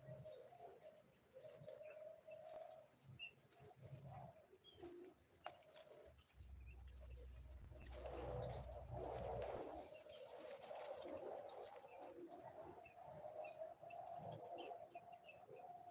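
Faint forest ambience: doves cooing, over a steady high-pitched insect trill, with a brief low rumble about halfway through.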